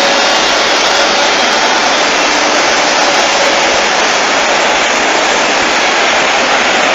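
Steady, loud rushing noise with a faint hum running under it and no breaks.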